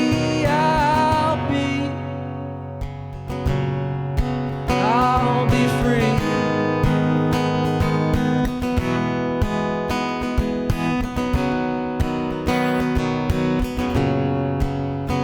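Acoustic guitar strummed steadily in an instrumental break of a live song, with a brief softer passage about two to three seconds in.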